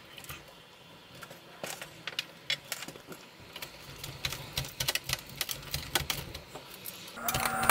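Irregular small clicks and taps of a serrated knife blade working against the wooden window stop and frame of a door, growing denser after a few seconds. Near the end a louder steady hum with a few held tones starts abruptly.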